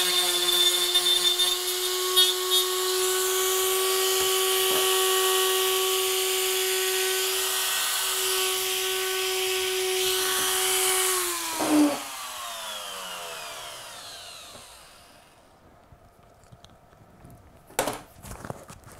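Dremel rotary tool running steadily at high speed with a high hiss as it sands the cut edges of resin building walls. About eleven seconds in it is switched off, with a knock, and its whine falls away as it spins down.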